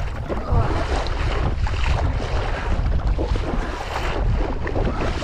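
Strong wind buffeting the microphone with a heavy low rumble, over choppy lake water splashing against a kayak being paddled into the wind.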